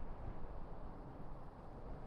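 Strong wind buffeting the microphone: an uneven low rumble that rises and falls without any steady tone.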